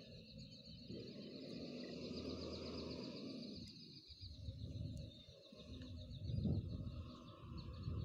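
Faint outdoor ambience: a low, uneven rumble, with a high, rapid trill that stops about three seconds in and returns near the end.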